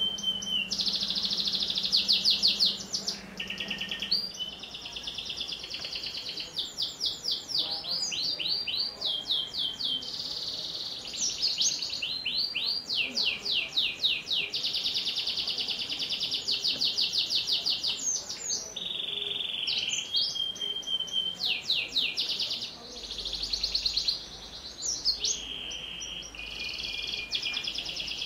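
Domestic canary singing a long, unbroken song: rapid trills of repeated sweeping notes alternating with steady whistled tones, changing phrase every second or two.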